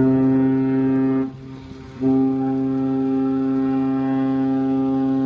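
Cruise ship's horn sounding: a deep blast of just over a second, then after a short pause a long, steady blast. It is the kind of horn signal a large ship gives as it gets under way.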